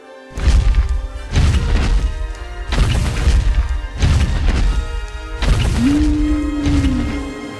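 Five heavy booming thuds with music, spaced about a second or more apart; a held, slightly bending tone comes in near the end.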